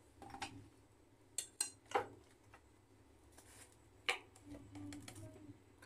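Metal spoon clinking and scraping against a stainless steel mixing bowl while stirring marinade into raw chicken pieces; a few sharp clinks, three close together about a second and a half in and another about four seconds in.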